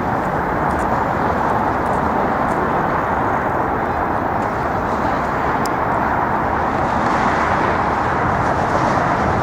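Steady noise of city street traffic, an even wash with no single vehicle standing out.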